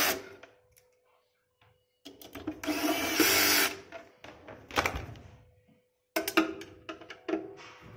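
Electric screwdriver whirring in short runs, one ending just as the sound begins and another of about a second and a half two seconds in, driving the new motor's mounting screws into the chimney's sheet-metal blower housing. Scattered clicks and knocks of the metal housing being handled follow.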